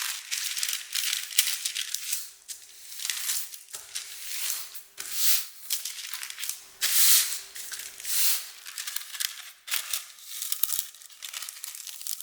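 Irregular rustling, crinkling and scraping of hands at work preparing a cake, a series of short swishes of varying length, with a faint steady hum underneath.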